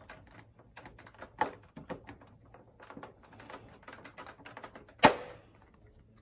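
Plastic fairing panel of a Yamaha R7 being worked off its clips: a run of small plastic clicks and knocks, then one loud sharp snap about five seconds in as a clip lets go.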